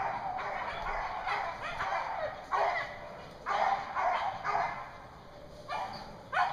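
Beagles baying on the scent line of a snowshoe hare: repeated drawn-out calls, some falling in pitch and some overlapping, with a short lull about five seconds in.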